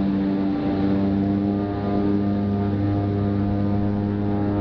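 Cessna Conquest twin turboprop engines and propellers running steadily, heard from inside the cockpit as a constant drone of low, even propeller tones.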